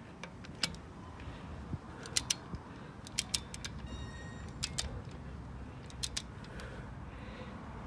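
Click-type torque wrench tightening wheel lug nuts: a series of sharp metallic clicks, mostly in quick pairs, the wrench's click marking that a nut has reached the set torque of 89 Nm.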